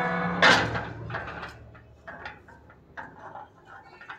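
Metal sliding gate being moved and rattled: a short scraping squeal, then a clang about half a second in, lighter knocks and rattles, and another clang near the end.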